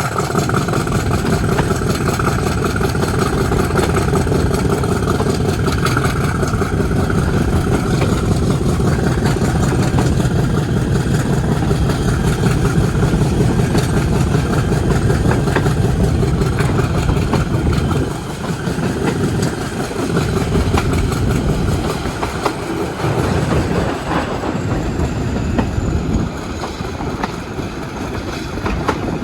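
Class 50 diesel locomotive's English Electric 16-cylinder engine working loud and steady as the train runs, easing somewhat about eighteen seconds in.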